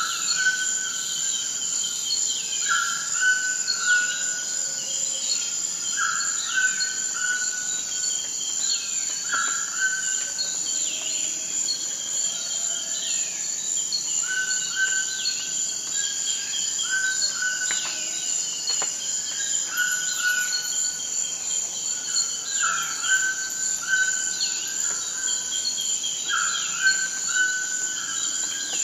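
Tropical rainforest ambience: a steady, high-pitched insect drone, with birds calling over it in runs of short repeated notes and many quick falling chirps.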